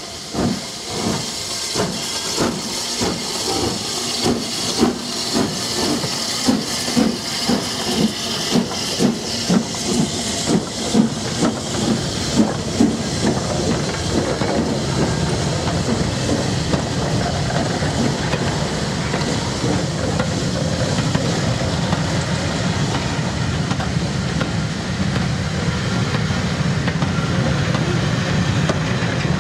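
Steam locomotive pulling away with a train, its exhaust beats mixed with steam hiss and coming faster over the first dozen seconds. The beats then give way to the steady rumble and clatter of passenger coaches rolling past.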